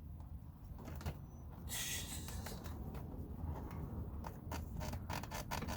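Hand work on a car door: a brief scraping rush about two seconds in, then a quick run of sharp clicks and knocks as parts and tools are handled.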